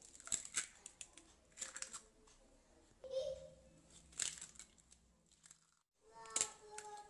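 Eggshells being cracked on a bowl's rim: a few sharp taps and cracks, spaced a second or more apart, as eggs are broken into the bowl. A voice is faintly heard in the background near the end.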